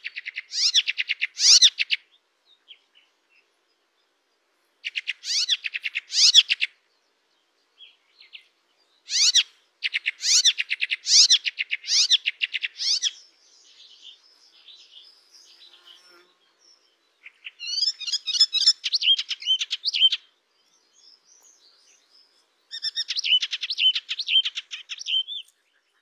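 A Hippolais warbler, the bird Indonesian keepers call 'cemblek kristal eropa', singing in fast, chattering, rapid-fire phrases. There are five loud phrases, each lasting one to four seconds with short pauses between, and softer twittering in the middle.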